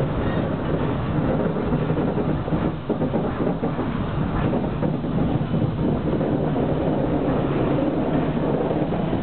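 Tram running along its tracks, heard from inside the car: a steady noise of the wheels on the rails and the car body.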